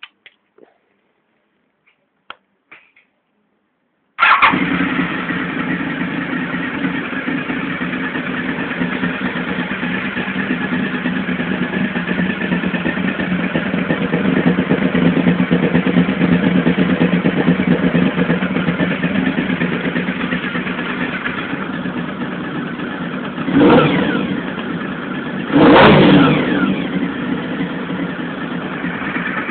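Honda VFR750 RC36 motorcycle's V4 engine on its stock exhaust, starting up abruptly about four seconds in after a few faint clicks, then idling steadily. Near the end, two quick throttle blips a couple of seconds apart rise and fall before it settles back to idle.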